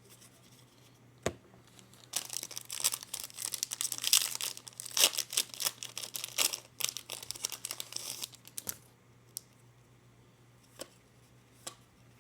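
A trading-card pack's wrapper being torn open and crinkled: a dense crackling that lasts about six seconds, with a single click before it and a few after.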